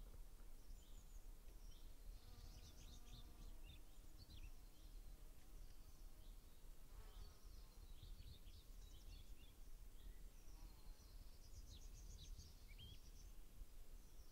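Faint meadow ambience: small birds chirping and twittering at a distance, with a flying insect buzzing past a couple of times.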